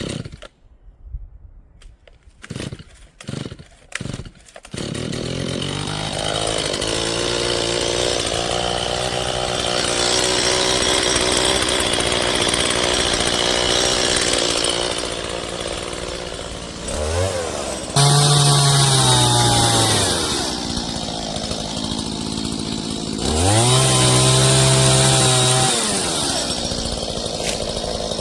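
Chainsaw starting after a few short pulls, catching about five seconds in and running. It is revved up to full speed twice, the pitch climbing and then dropping back each time.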